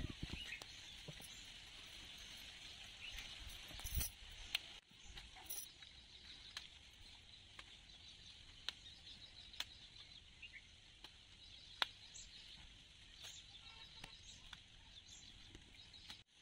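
Hibiscus stems snapping and leaves rustling as flowers and leaves are picked by hand and dropped into a plastic basket: scattered sharp clicks, a louder clatter about four seconds in, over a quiet steady high hiss of outdoor background with a few faint chirps.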